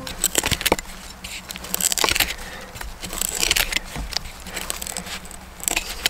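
Irregular rustling, crinkling and sharp clicks from handling a tarp over a forest floor of dry leaves while a shelter is being set up.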